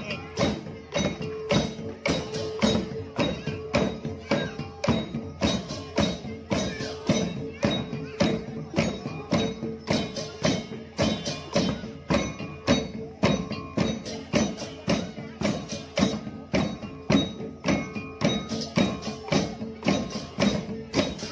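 Balinese parade percussion ensemble playing a steady, driving rhythm: wooden okokan bells clattering together with kendang drums and cengceng cymbals.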